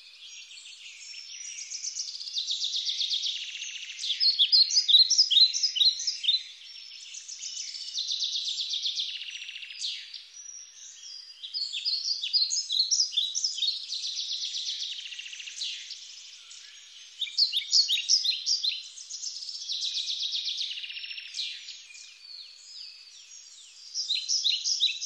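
A songbird singing in long phrases of rapid high trills and chirps, with short pauses between phrases.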